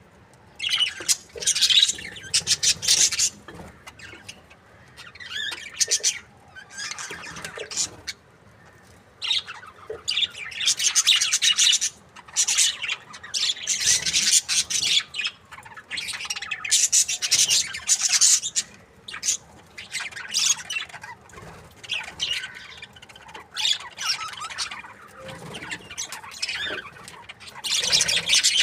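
Budgerigars chirping and chattering in busy bouts of a few seconds, with short lulls between.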